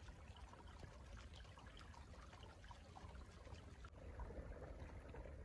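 Faint trickle of water, many small soft ticks over a low rumble, growing a little louder near the end.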